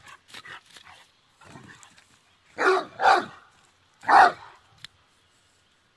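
Great Dane barking three times in play, two barks close together about halfway through and a third about a second later.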